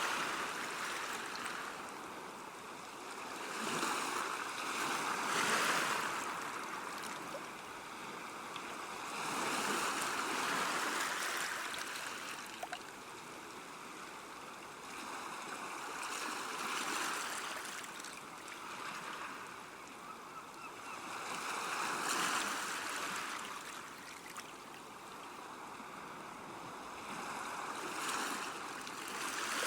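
River water flowing along a bank, a steady wash that swells and eases every few seconds.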